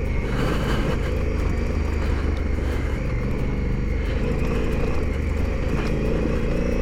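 Adventure motorcycle engine running steadily while the bike rides along a gravel track, a constant low engine drone under a layer of road and wind noise.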